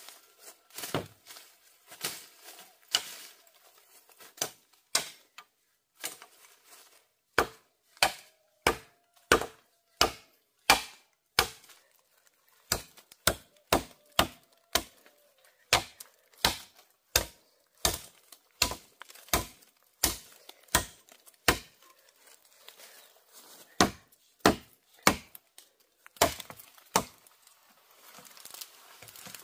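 Bamboo being chopped with a blade: a long run of sharp chopping strokes, about one and a half a second, broken by a few short pauses.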